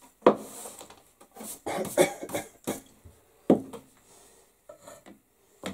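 A hand counter brush swept over a wooden workbench top in short, irregular strokes, with sharp knocks and rattles of debris and objects on the bench. The loudest strikes come about a third of a second in and about three and a half seconds in.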